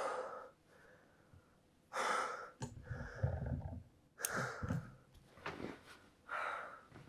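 A young man breathing hard in a string of gasping breaths, with a low bump of movement on the bed about three seconds in. A sharp click just after four seconds is the bedside lamp being switched off.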